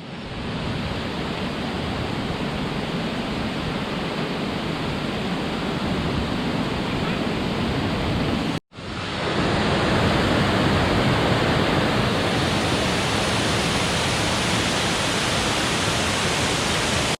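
Steady rush of a waterfall, a dense even roar of falling water. The sound cuts out abruptly about halfway through and comes back louder.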